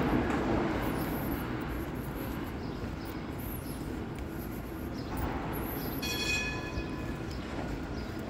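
Street traffic noise on a wide city avenue: a vehicle going by just as it starts, fading away, then a steady traffic hum that swells again with a brief high squeal about six seconds in.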